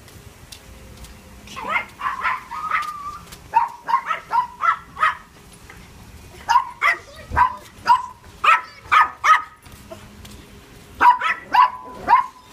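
A dog barking in several quick runs of short, high-pitched barks, a few barks a second, with pauses between the runs.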